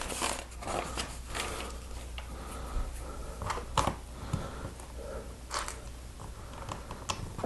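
Lego plastic pieces being handled and pressed onto a baseplate: scattered small plastic clicks and light rustling, with a few sharper clicks, near the middle and end, standing out.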